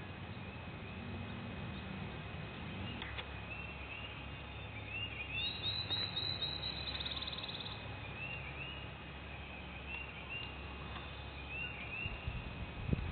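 Small songbirds calling in spring woods: scattered short chirping phrases and a quick trill about halfway through, over a low steady rumble, with a single knock near the end.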